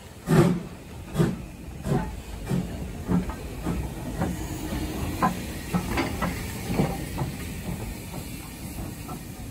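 BR Standard Class 2MT steam locomotive No. 78018 moving slowly alongside the platform: steam hissing, with a slow, regular beat about once every three-quarters of a second that is strongest in the first few seconds and then grows fainter.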